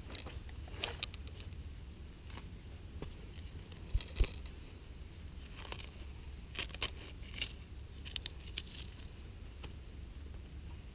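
Wooden digging stick scraping and prodding into dry, stony soil, with scattered small crunches and crackles of dirt and leaf litter and two sharper knocks about four seconds in; near the end, fingers scrape through the loose earth.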